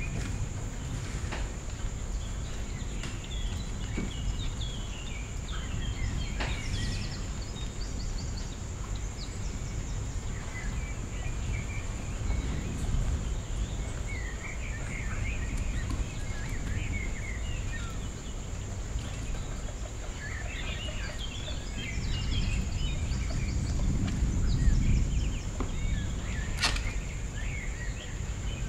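Guinea pigs feeding, with scattered short high chirps and small clicks over a steady low rumble and a faint steady high whine.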